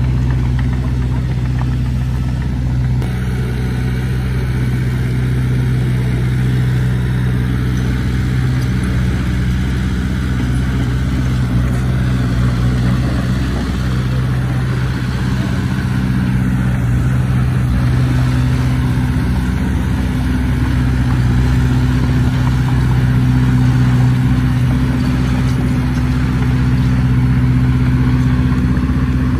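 Heavy diesel engine of earthmoving machinery running steadily at a near-constant speed, getting slightly louder in the second half.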